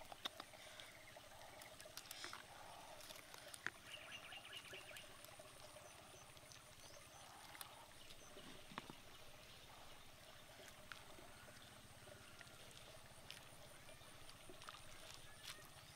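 Faint sounds of fish soup being ladled from a pot into a clay bowl: a few light clicks and a soft trickle in the first few seconds, then near silence.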